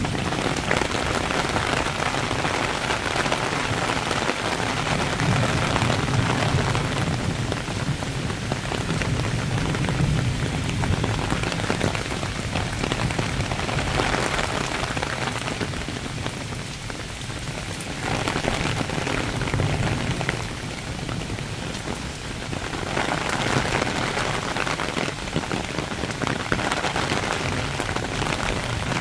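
A heavy summer shower falling on leaves, grass and a wet paved path: a steady hiss of rain that swells and eases a few times.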